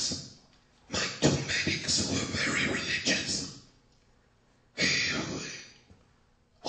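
A person's voice in three stretches: a short one at the start, a long one from about one to nearly four seconds in, and another about five seconds in, with pauses between. It sounds rough and percussive, and no words can be made out.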